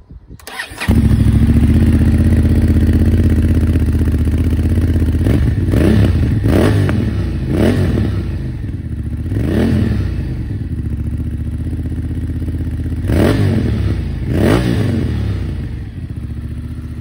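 2023 Honda Transalp XL750's 755 cc parallel-twin engine, breathing through a Black Widow aftermarket rear silencer and link pipe, fired up for the first time. The starter cranks briefly and the engine catches about a second in. It then idles loudly, with several quick throttle blips whose pitch rises and falls.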